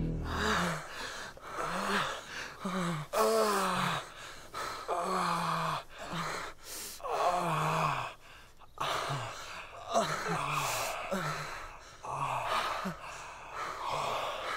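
Men gasping and moaning: a run of short breathy moans about once a second, many of them falling in pitch.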